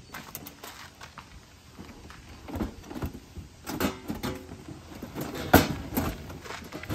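Camping gear being handled and fitted into a car's cargo space: a run of scattered knocks, scrapes and rustles, with the loudest, sharp thump about five and a half seconds in.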